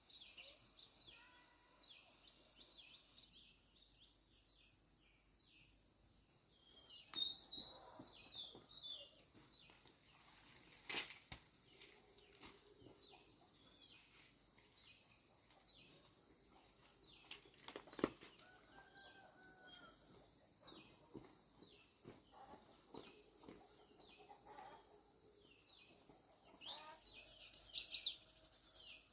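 Countryside ambience: a steady high drone of insects with many birds chirping throughout, louder bird calls about seven seconds in and near the end, and two sharp knocks.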